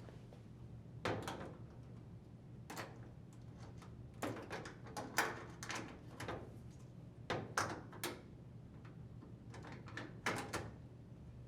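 GE dryer door being hung back on the cabinet, its metal hinges knocking and clunking as they are set over the hinge screws: a string of separate knocks, some in quick pairs.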